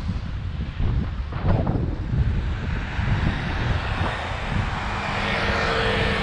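Wind rumbling on the microphone of a moving bicycle, with a motor vehicle passing in the second half; its engine hum and tyre hiss swell toward the end.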